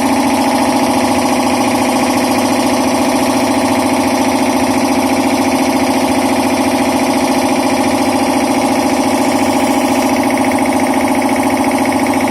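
Air compressor running steadily under test: a loud, even, humming drone with a fast fine pulsing that does not change.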